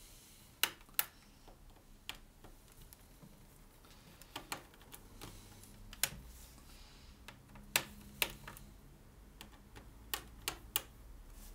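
A small screwdriver working the screws out of a laptop's plastic underside panel: scattered, irregular sharp clicks and taps.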